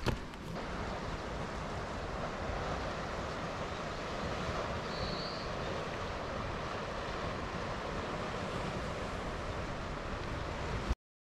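Steady wash of sea waves on a rocky shore, an even surf noise with no distinct breaks, that cuts off suddenly near the end.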